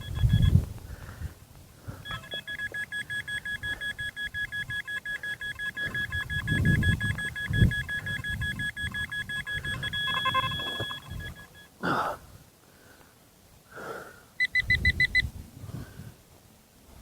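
Metal detector's electronic signal: a steady two-pitch beep pulsing rapidly for several seconds, with a handling knock partway through and a short burst of quicker beeps near the end. It signals more metal still being found in the dig hole.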